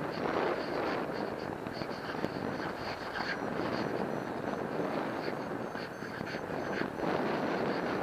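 Rushing airflow and wind buffeting the camera microphone of a paraglider in flight, swelling and easing in gusts.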